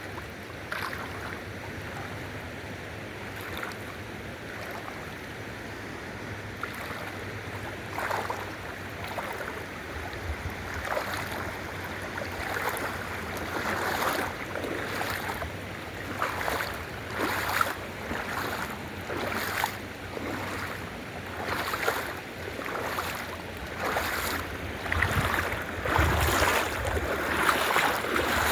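The New River's water rushing steadily, with footsteps over rocks about once a second through the second half, growing louder near the end.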